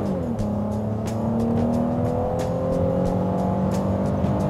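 The 3.7-litre V6 of a 2008 Mazda CX-9 accelerating hard, heard from inside the cabin. Its pitch drops at an upshift of the six-speed automatic right at the start, then climbs steadily as the revs build.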